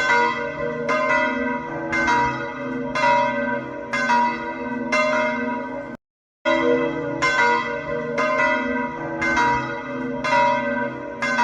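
Church bells ringing, several bells struck in turn about once a second with their tones hanging and overlapping. The ringing cuts off suddenly about six seconds in and starts again after a brief gap.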